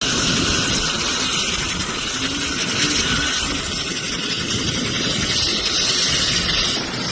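An engine running steadily and loudly, cutting in suddenly out of silence.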